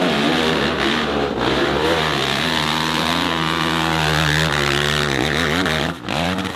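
Motorcycle engine revving, its pitch wavering up and down and then held steady for a few seconds before it cuts off abruptly near the end.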